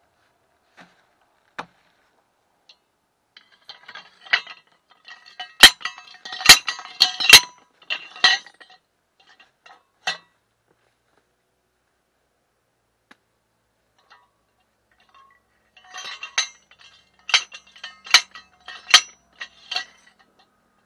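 Homemade sliding hammer, a roughly 5 kg steel tube capped with thick welded steel plate, slammed down over a steel pepper-support pipe to drive it into the soil: sharp metal-on-metal clanks with a short ring, in two runs of several strikes, one about four seconds in and another near the end. The pipe goes in easily.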